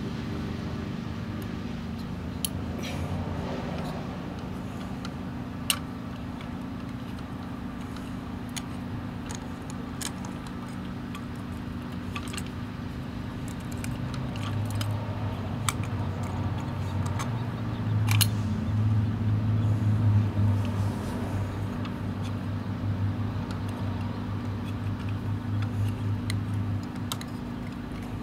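Small clicks and clinks from a hand working a diecast model garbage truck and its toy carts, over a steady low hum that grows louder about halfway through and eases off near the end.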